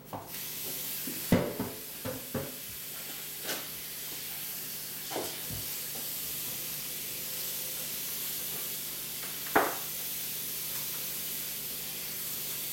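Kitchen clatter: several short knocks and clinks of utensils and dishes on a countertop, the loudest a bit past the middle, over a steady hiss.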